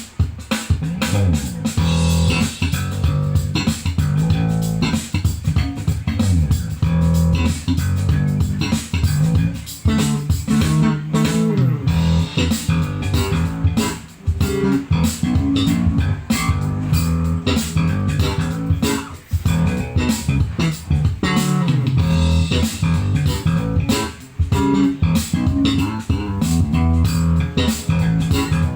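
Music with a prominent bass guitar line and guitar, played loud through a 12-inch active speaker during a sound test. The low bass notes dominate.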